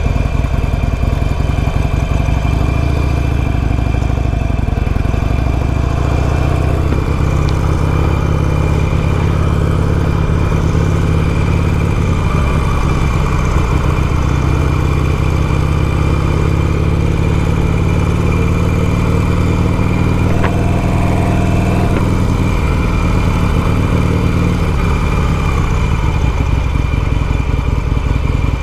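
Harley-Davidson Sportster Iron 883's 883 cc air-cooled V-twin running while the motorcycle is ridden, its pitch rising and falling several times as the throttle is opened and closed.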